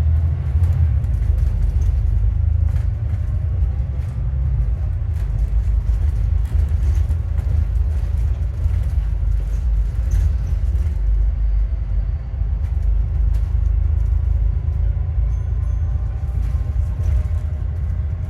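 Alexander Dennis Enviro400MMC double-decker bus on the move, heard from inside: a steady low rumble of engine and road, with faint whining tones that drift up and down. The whine is the sign of a bad alternator.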